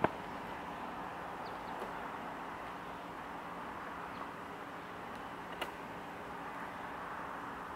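Steady outdoor background noise with no engine running, broken by two short sharp clicks, one right at the start and one about five and a half seconds in.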